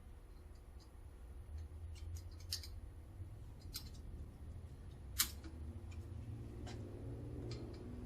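Sharp metallic clicks and taps of hand tools (screwdriver and snap-ring pliers) working the snap ring on an automatic-transmission clutch drum held under a spring compressor, with one louder snap about five seconds in.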